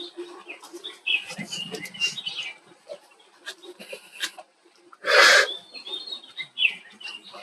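Birds chirping in short, scattered high calls, with a few sharp clicks and one short, loud rushing noise about five seconds in.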